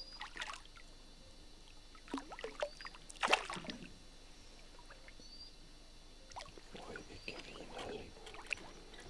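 A hooked fish thrashing and splashing at the lake surface close to the boat. The loudest splash comes about three seconds in, with smaller ones about two seconds in and again near the end.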